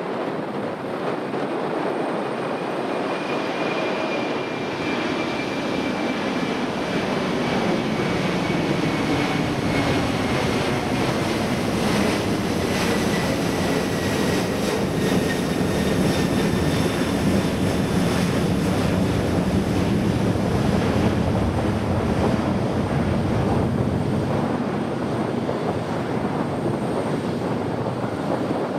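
Boeing 747-400 freighter's four jet engines at takeoff power, a loud continuous jet noise that builds to a peak about halfway through and eases off, with a high whine sliding slowly down in pitch as the aircraft passes.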